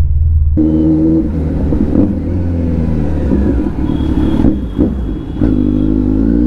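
Kawasaki Z900's inline-four engine through an aftermarket Arrow exhaust, revved in repeated blips at low road speed, the pitch rising and falling, with a rising rev near the end.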